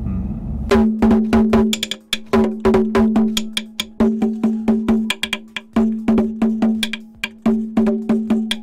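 Small red hand drum beaten with wooden sticks in a quick, uneven rhythm. Each stroke is a sharp click with a ringing tone at the same pitch. It starts about a second in.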